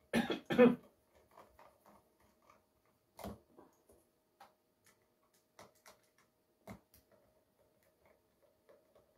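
A short double cough near the start. Then scattered small clicks and taps as a screwdriver works out the screws holding a driver inside a Tronsmart T2 Plus Bluetooth speaker.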